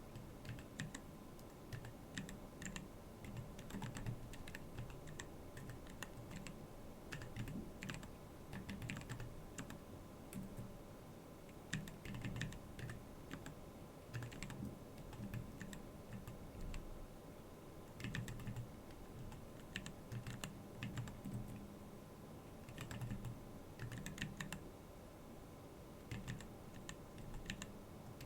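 Typing on a Keyball39 split mechanical keyboard: quick runs of key clicks and clacks in bursts, with brief pauses between phrases. A faint steady hum sits underneath.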